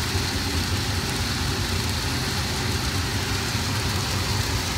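Onions and garlic sizzling steadily as they sauté in an Instant Pot, over a constant low hum.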